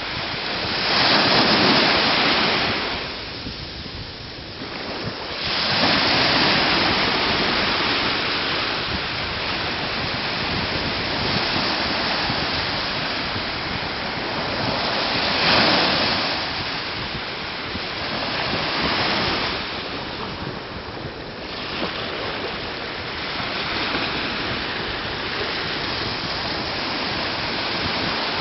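Small North Sea waves washing in over the sand at the water's edge. It is a steady rushing that swells louder with each wave, around a second in, at about six seconds, and again at about sixteen and nineteen seconds.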